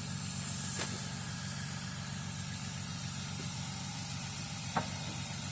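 Petrol generator running steadily with an even, engine-like hum, with two faint metallic clicks, about a second in and near the end.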